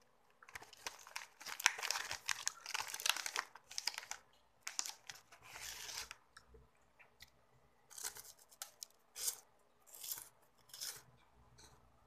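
Crinkling and tearing of a foil snack wrapper for the first few seconds, then crisp crunching bites and chewing of a chocolate wafer in separate bursts.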